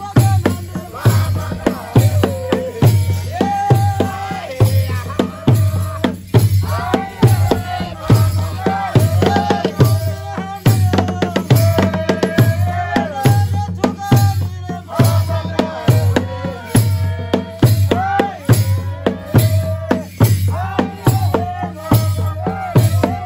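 Rwandan traditional dance music: big wooden drums keep a steady beat, a little more than one beat a second, with shaken rattles and voices singing a melody over it.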